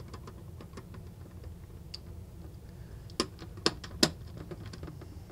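Clear acrylic case panels being fitted together by hand around a function generator kit board: light plastic ticks and taps, with three sharper clicks about three seconds in as the pieces seat.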